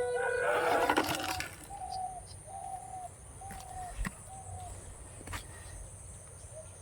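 A bird calling a run of five short, even, coo-like notes, a little over one a second. A louder rushing noise ends about a second and a half in, and two sharp clicks come later.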